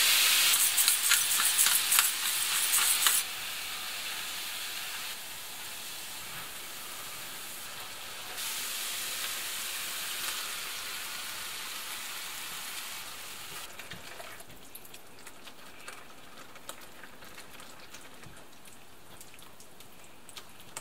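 Minced meat frying with diced onion and celery in a pan: a sizzling hiss with sharp crackles for about the first three seconds, then a quieter, steadier sizzle that drops in steps and grows fainter toward the end.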